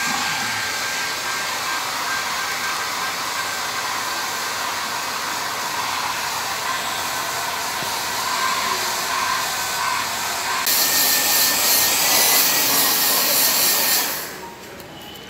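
Pet grooming dryer blowing a steady stream of air over a wet Lhasa Apso's coat, a hissing rush with a faint steady whine. About ten seconds in it turns louder and hissier, then falls much quieter about fourteen seconds in.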